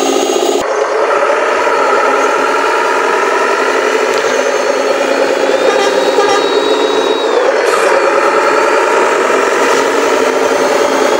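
Radio-controlled Hino 500 model truck running, its motor and gears giving a steady, loud whine. The sound shifts abruptly about half a second in and again near eight seconds.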